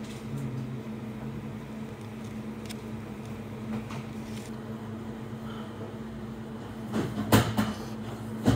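A steady mechanical room hum, with a few sharp clacks about seven seconds in and again near the end as a plastic takeaway tray and fork are handled while eating.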